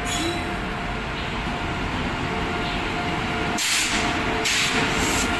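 WAP-7 electric locomotive hauling a passenger train running in along the platform with a steady rumble. About three and a half seconds in, loud hissing bursts begin as the locomotive draws close, repeating irregularly.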